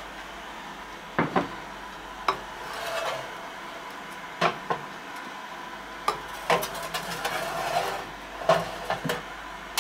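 Glass jars filled with cucumbers being set down and shifted on a metal baking tray: a string of sharp clinks and knocks, about ten in all, with soft scraping in between.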